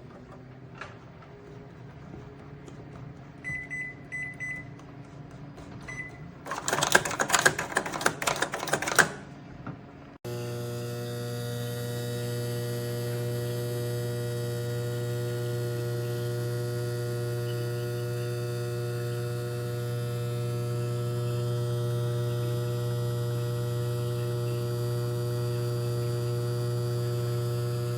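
Black+Decker EM720CB7 700 W microwave oven: a few short button beeps, a loud clatter for about two seconds, then about ten seconds in the oven starts running with a steady electrical hum that holds to the end.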